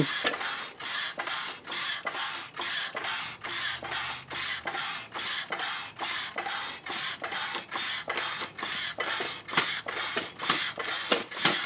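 Floor jack being pumped under a transmission and transfer case: an even run of sharp clicks, about three a second, from the handle strokes, with a few louder clicks near the end.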